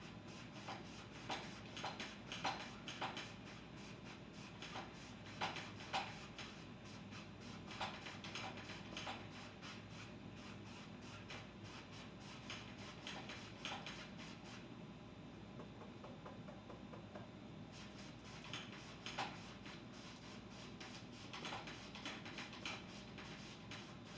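Large 2-inch paint brush tapped and dabbed against a stretched canvas, laying on blue paint: irregular soft taps and scratches, pausing for a few seconds past the middle, over a steady low room hum.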